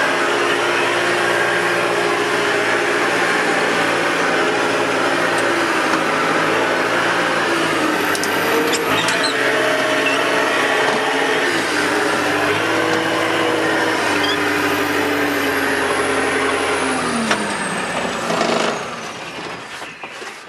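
Yellow wheel loader's engine running, heard from inside its cab, its pitch shifting a few times as the machine works. About 17 seconds in, the engine winds down and stops.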